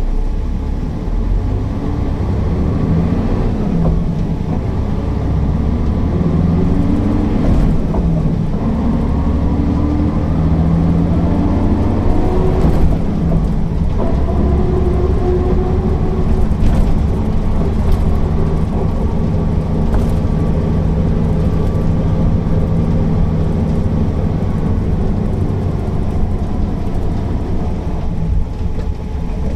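Mercedes-Benz O408 city bus's diesel engine pulling the bus along, its pitch climbing several times over the first half and then running steadily.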